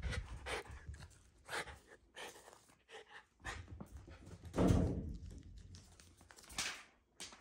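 Shiba Inu moving about on a blanket and carpet: irregular short rustles and paw sounds, with a heavier thump about five seconds in.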